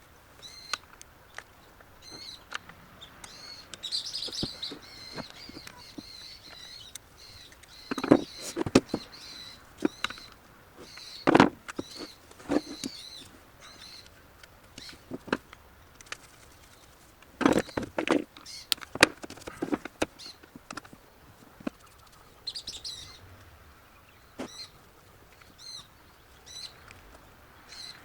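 Small birds chirping over and over in short high notes, with scattered sharp clicks and knocks of small parts and tools being handled. The loudest knocks come in clusters about a third of the way in and again past halfway.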